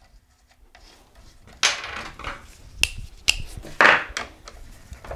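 Metal tool and bolt handling on a bicycle crankset: the 8 mm screw is threaded into the crank axle and a long Allen wrench is fitted and turned. There is a scrape about one and a half seconds in, two sharp metallic clicks, then another scrape near four seconds.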